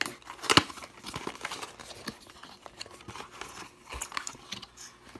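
Packaging rustling and crinkling, with small clicks, as camera accessories are taken out of their box; a louder rustle about half a second in.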